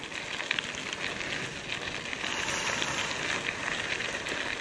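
Mountain bike tyres rolling over loose gravel: a steady gritty crunch dotted with many small ticks of stones.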